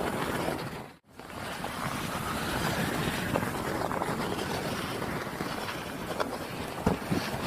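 Steady rushing wind noise on the microphone, outdoors in falling snow, with scattered small knocks. The sound cuts out abruptly for an instant about a second in.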